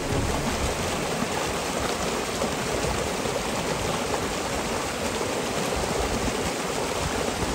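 A fast-running creek: a steady, even rush of water.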